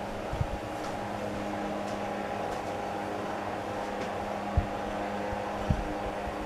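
Wizard Citation BE2006A-37 12-inch oscillating table fan running at its single speed: a steady motor hum with air noise from the blades. Two soft low thumps come in the second half.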